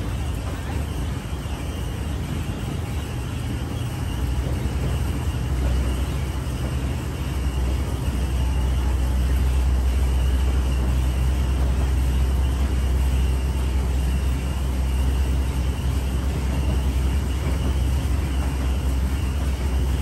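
Small open-top sightseeing rail cart running through a tunnel: a steady low rumble from its motor and wheels on the rails, which grows louder between about four and eight seconds in and then holds.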